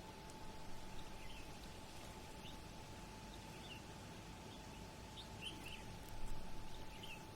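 Harbourside city ambience: a steady low rumble with a faint constant hum, while small birds chirp briefly and repeatedly. Two short louder swells of low noise come about a second in and near the end.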